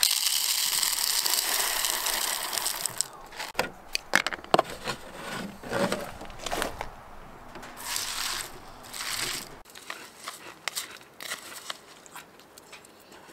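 Dry rice cereal (Cocoa Krispies) pouring from its box into a plastic bowl, a steady rattling hiss for about three seconds. It is followed by scattered knocks, rustles and short clatters of handling.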